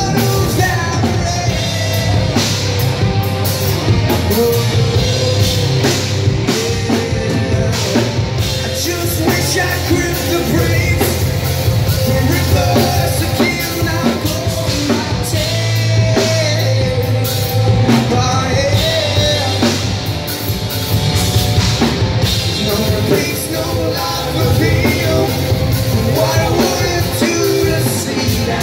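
A rock band playing live and loud: electric guitars, bass guitar and drum kit, with a singer's vocals.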